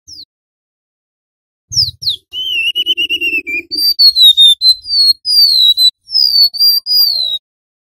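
Golden-bellied gerygone (remetuk laut) singing: one brief high note at the very start, then from about two seconds in a run of high, thin, whistled notes, most of them sliding downward.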